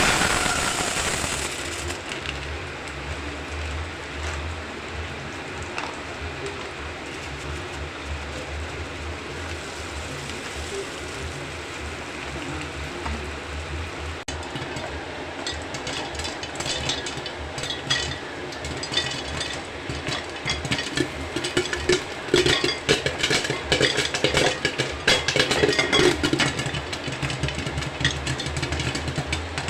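Close, irregular crunching and crackling of popcorn being chewed, starting about halfway through and loudest a few seconds later, over a steady low hum.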